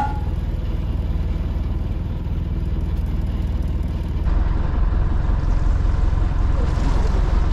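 Fishing boat's engine idling steadily with a low, even rumble, louder and heavier from about four seconds in.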